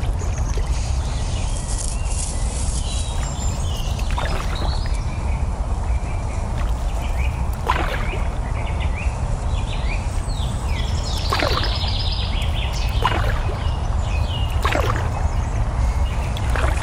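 A paddle dipping and splashing into the river every few seconds, about five strokes, as a small boat is paddled along. Birds chirp throughout, over a steady low rumble of wind on the microphone.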